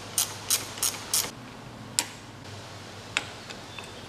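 Sharp clicks: four in quick succession about a third of a second apart, then single clicks about two and three seconds in, over a faint low hum.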